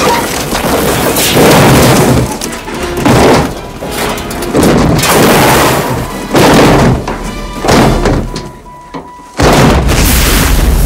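A car tumbling down a rocky hillside: a series of heavy crashing impacts about every second and a half, then a sudden loud explosion about nine seconds in that stays loud. Dramatic orchestral film music plays underneath.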